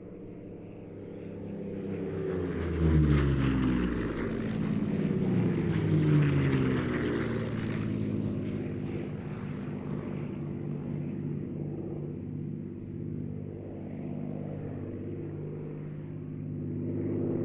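Two Rolls-Royce Merlin V12 piston fighters, a Hispano Buchón and a P-51D Mustang, passing one after the other. Each engine note drops in pitch as it goes by, loudest about three and six seconds in. The sound then settles into a steadier, fainter drone as they draw away.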